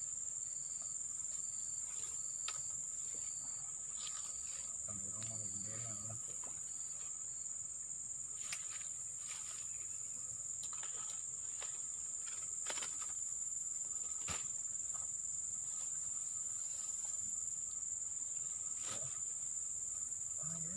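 Insects droning in a steady, high-pitched chorus. A faint short chirp repeats about twice a second through the first six seconds, and a few faint clicks come in the middle.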